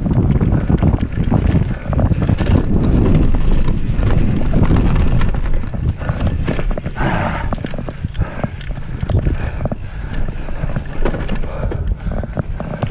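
Mountain bike descending a rough dirt trail: tyres on dirt with a rapid, uneven clatter of knocks from the frame, chain and suspension over bumps, under a heavy low rumble of wind on the microphone.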